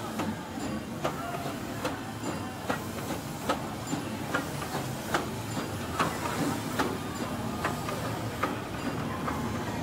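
Narrow-gauge steam train running along the track, with a steady rumble and a sharp regular click about every 0.8 seconds.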